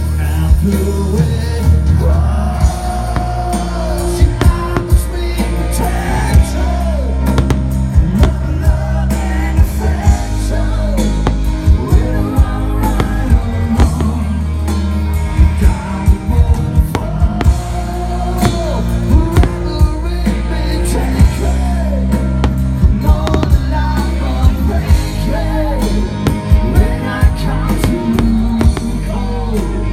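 Loud pop-rock song with a singer, drums and guitar over a steady bass, played as the soundtrack to a fireworks display. Sharp bangs from firework bursts come irregularly through it, some in quick clusters.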